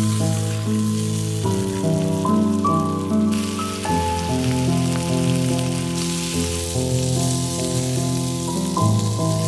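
Background music of slow, sustained chords that change every two to three seconds, over a steady crackling hiss from the campfire or something frying over it.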